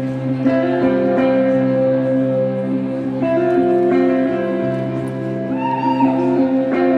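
Live electric guitar and stage keyboard playing a slow instrumental passage of held chords that change every second or two, amplified through the venue's PA.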